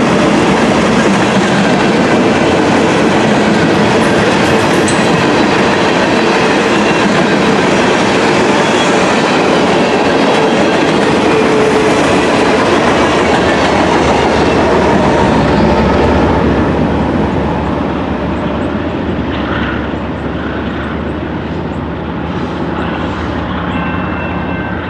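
A train rolling past close by, a loud rumble of railcars with wheels clicking over rail joints, that fades a little after about 17 seconds as it moves away.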